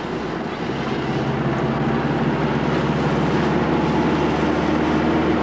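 Steady engine hum and road noise of a moving vehicle, heard from inside it while it drives along.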